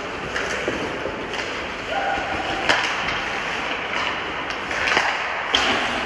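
Ice hockey play in an indoor rink: skates scraping the ice under a steady hiss, with sharp clacks of sticks and puck, the loudest nearly three seconds in and again near the end.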